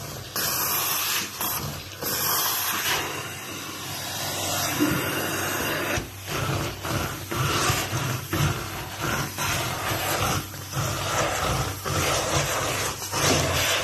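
Carpet extraction machine running as its hand tool sprays and sucks water from carpeted stairs: a steady suction-and-spray hiss. From about six seconds in the sound breaks and returns with each short stroke of the tool.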